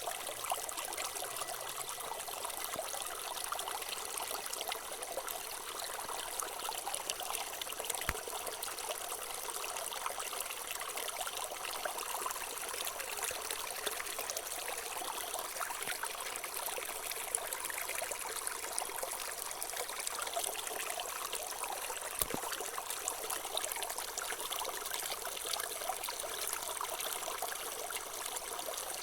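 Water trickling steadily and without a break.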